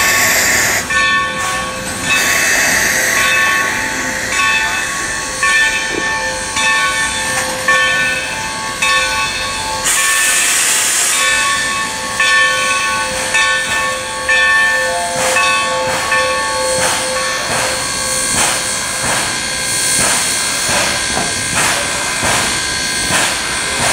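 New Haven 3025, a 2-6-2 steam locomotive, backing slowly, with ringing tones repeating about once a second. A burst of steam hiss comes about ten seconds in, and sharper knocks and clanks follow through the second half.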